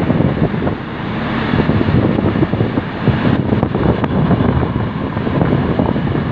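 Wind buffeting the microphone over the steady running noise of a rail maintenance vehicle travelling along the track, a loud, ragged rumble without pauses.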